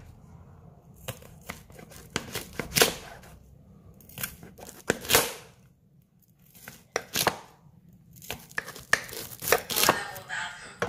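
Large kitchen knife chopping ears of fresh corn on the cob into rounds on a chopping board: a series of irregular cuts through the cob, several bunched together near the end.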